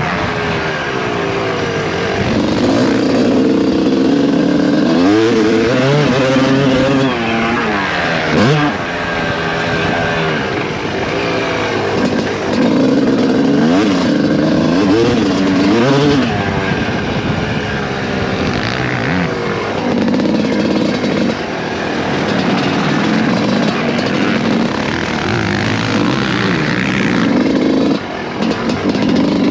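Suzuki RM250 two-stroke motocross bike engine, heard from on board, revving up and falling back again and again as it is ridden hard round the track, the pitch climbing and dropping every second or two.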